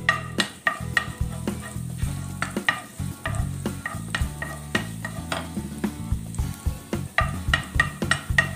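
Wooden spatula stirring chopped garlic in hot oil in a nonstick frying pan: a light sizzle under repeated scraping taps of the spatula against the pan, two to three a second.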